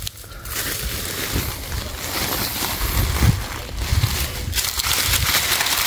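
Crinkly rustling of a woven plastic sack being handled and pulled aside from fruit on a papaya tree, with a few low rumbling thumps.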